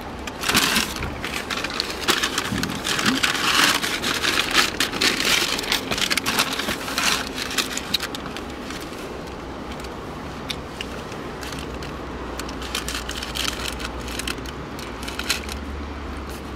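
Paper fast-food bag and sandwich wrapper rustling and crinkling as they are handled, busy for the first half, then giving way to a quieter steady low hum.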